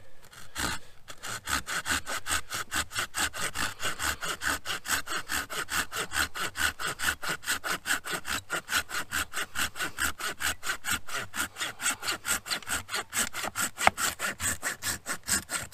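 Folding pruning saw cutting through a dead branch in quick, even strokes, about four to five a second, starting about a second in.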